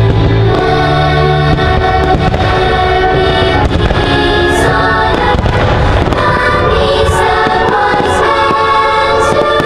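Fireworks going off as a run of sharp bangs from about four seconds in, over loud show music that plays throughout.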